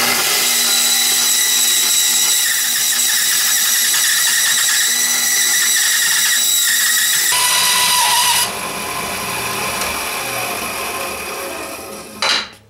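Craftsman band saw running and cutting through a wooden 2x4 block. The sound changes about seven seconds in, drops in level a second later and tapers off, then ends with a brief loud burst near the end.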